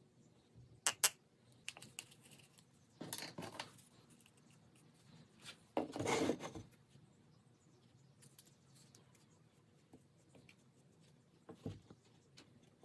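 Small handling noises on a workbench as epoxy is mixed and spread: two sharp clicks about a second in, then short scraping rustles, the loudest near the middle, and a single click near the end.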